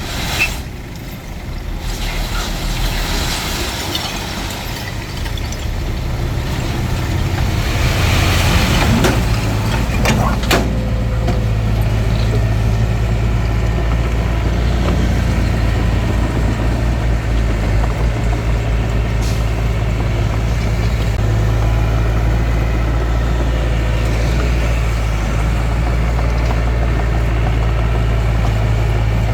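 Bulldozer's diesel engine working under load: it builds up over the first several seconds and then runs steadily. A hiss and a couple of sharp knocks come about eight to ten seconds in.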